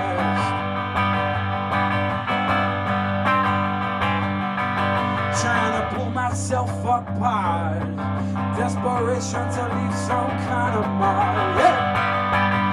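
Hollow-body electric guitar played in an instrumental passage of a song, with some notes bending in pitch over a steady low drone.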